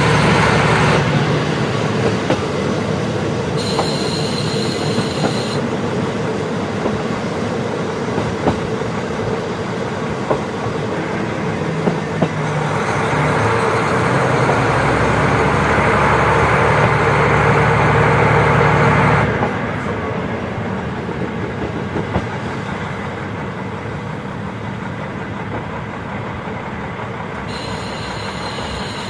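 KiHa 40 diesel railcar running along the line. Its engine pulls harder and louder through the middle, then eases off about two-thirds of the way through. Rail-joint clicks come at intervals, and a brief high squeal sounds twice, early and near the end.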